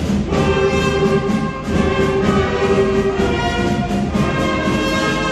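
Children's school wind band playing: brass and woodwinds holding sustained notes that change about every second or so.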